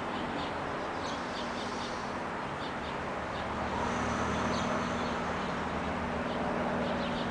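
Steady outdoor background rumble and low hum, with short faint bird chirps scattered through it.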